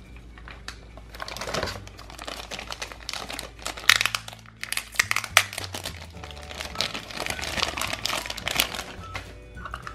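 Thin clear plastic bag crinkling and rustling as hands handle and open it, irregular rustles with a few sharper crackles, the loudest a little after four seconds in.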